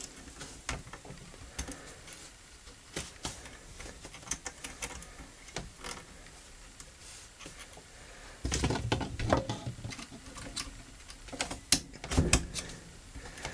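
Small metal clicks and scrapes as a replacement extractor and a dental pick are worked into the bolt of a Remington Model 58 shotgun. About two-thirds in comes a louder stretch of handling noise, then a few sharper clicks near the end as the extractor is caught by its spring-loaded plunger.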